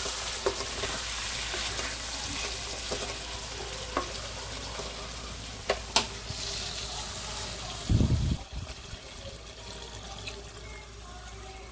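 Tripe (pota) frying and sizzling in a steel kadhai as a spatula stirs it, with a few sharp scrapes and clicks of the spatula against the pan. A dull thump about eight seconds in, then water poured into the pan near the end.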